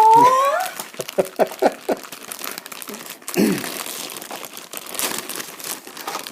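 Plastic packaging crinkling and rustling as a plush toy is unwrapped, with a brief pitched sound that rises and falls at the very start, the loudest moment, and a few short pitched blips after it.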